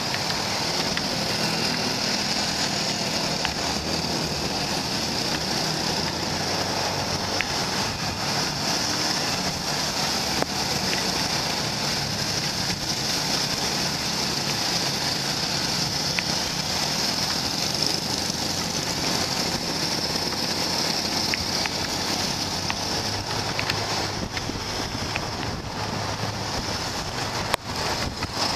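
Motorbike riding in city traffic: a steady engine hum and road noise under wind rushing over the microphone.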